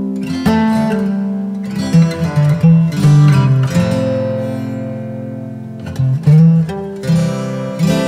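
Instrumental background music with plucked string notes, playing throughout.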